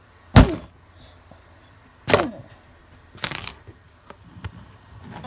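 Plastic fingerboard flicked into kickflip attempts and smacking down on a tabletop: sharp clacks, the loudest about half a second in, two more around two and three seconds in, then a few light taps.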